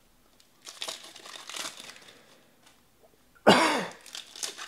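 Trading cards and pack wrappers rustling as they are handled, then a single loud cough about three and a half seconds in.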